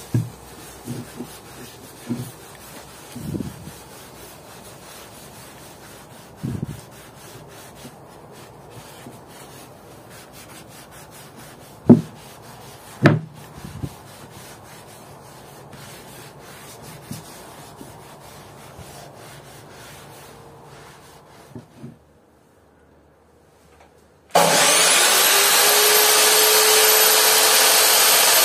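A few scattered knocks and handling sounds, then a brief hush. About 24 seconds in, an electric motor spins up: its whine rises and levels off into a loud, steady whir.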